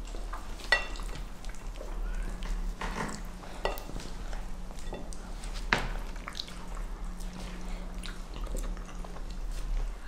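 Eating at a table: scattered clinks of cutlery and glasses on plates, the loudest about a second in with a brief ring, with some chewing, over a steady low hum.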